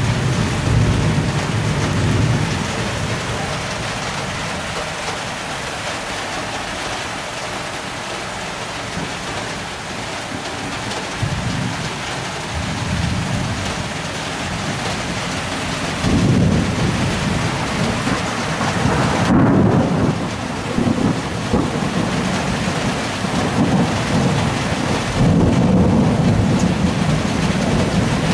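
Steady heavy rain falling during a thunderstorm, with rolling thunder: a rumble near the start, another about halfway, and a long, loud rumble through most of the second half.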